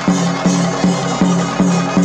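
Music with a steady percussion beat, about two and a half strokes a second, over a held low note.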